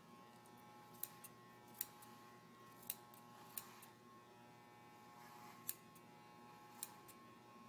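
Faint snips of hand scissors cutting a dog's fur: about six short, sharp clicks at irregular intervals.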